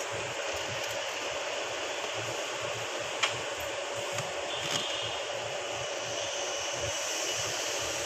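Steady whir of a running fan with a faint hum, and a few light clicks.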